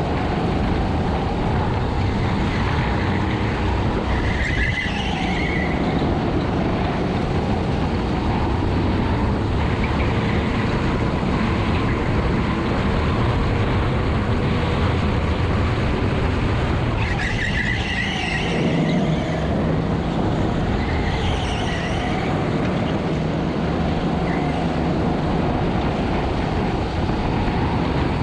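Honda GX200 single-cylinder four-stroke kart engine running hard under race load, its note shifting twice as the revs change through the track.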